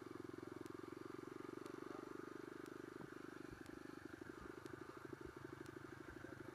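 Small single-cylinder motorcycle engine running at low revs with a steady, even putter, which turns choppier and uneven about four seconds in as the throttle eases off.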